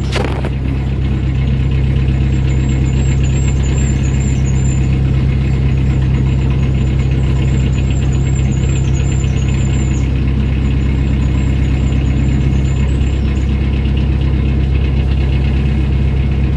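Narrowboat engine running steadily at about 1,000 RPM, just above tickover, while the boat cruises slowly. A brief knock right at the start as the phone is set down on the roof.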